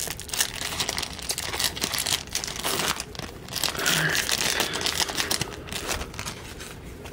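Crinkling of a Topps Platinum trading card pack's wrapper as it is handled and opened, a dense run of irregular crackles and rustles.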